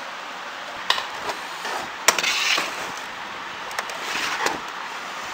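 Flat-blade screwdriver prying at the plastic casing of an Epson printer: a few sharp plastic clicks and snaps, the loudest about two seconds in, with scraping of plastic between them.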